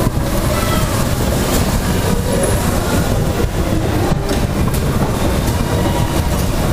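Dodgem car driving across the ride's metal floor: a loud, steady rumble with constant rattling from the moving car.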